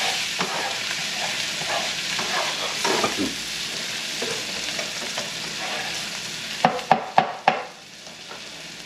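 Green peas, carrots and onions sizzling in a nonstick frying pan while being stirred and scraped with a utensil; the sizzle slowly eases. Near the end come four sharp knocks in quick succession.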